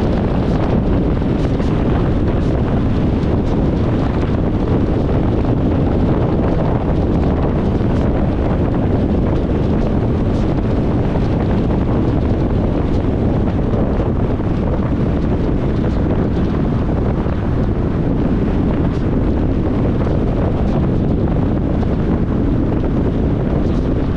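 Steady low rumble of a car driving along, road and engine noise with no change in speed or pitch.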